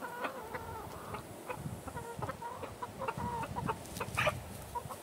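Hens clucking softly, a run of short repeated clucks, with a few sharp ticks mixed in. The loudest tick comes a little after four seconds in.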